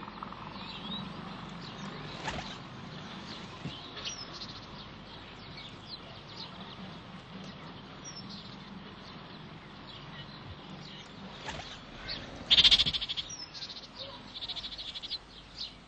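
Ring-necked parakeets calling: short, shrill calls scattered throughout, one loud call about twelve and a half seconds in, then a quick run of calls just after.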